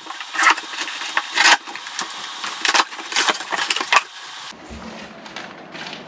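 Cardboard box being opened: packing tape ripped off and the cardboard flaps pulled back, a run of sharp rips and scrapes for about four seconds. After that, softer rustling as a sheet of paper is taken out and handled.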